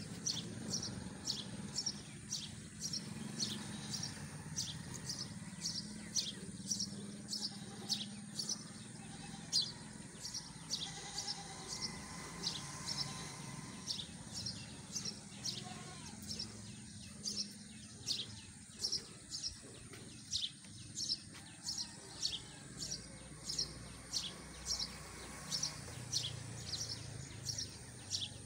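Cow being hand-milked: streams of milk squirting into a steel bucket already part full of milk, a steady rhythm of short hissing squirts, about two or three a second.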